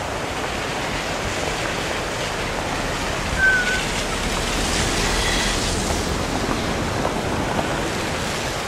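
Steady rushing of running water, like a mountain stream. A brief high chirp stands out about three and a half seconds in.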